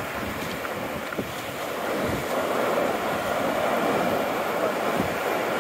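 Ocean surf breaking and washing up the beach, with wind buffeting the microphone; the rush grows a little louder about two seconds in.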